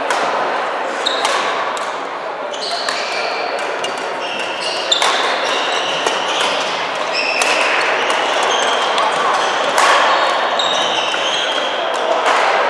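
Badminton doubles rally: sharp racket hits on the shuttlecock every second or two, echoing in a large sports hall. Short high squeaks of shoes on the wooden court floor come between the hits.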